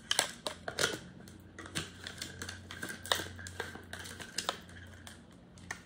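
Irregular light clicks and taps of hard plastic parts being handled: a portable blender's cup, lid and motor base knocked and fitted together.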